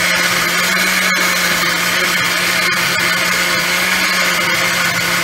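Electric mixer-grinder running steadily, grinding coconut, green chili and onion into chutney: an even motor hum with a high whine over it.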